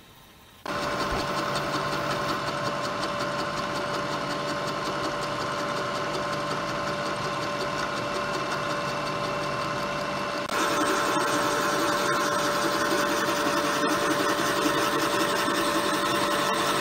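Milling machine spindle turning a boring head as it bores out a hole: a steady machine hum with several steady tones. It starts abruptly about a second in and steps up louder about ten seconds in.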